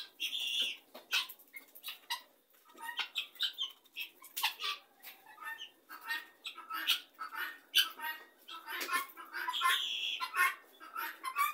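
A flock of helmeted guineafowl calling in a rapid, irregular string of short notes as they forage, with two longer calls: one right at the start and one near the end.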